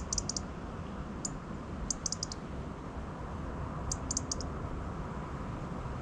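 A small songbird off in the yard giving short, very high call notes in three quick runs of four or five, about two seconds apart, with a single note between the first two runs. Over a steady low outdoor rumble.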